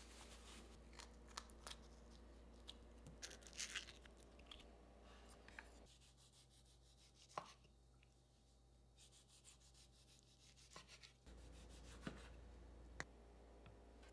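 Faint scattered taps, clicks and soft rustles of hands at work, over a low steady hum. The background changes abruptly about six seconds in and again about eleven seconds in.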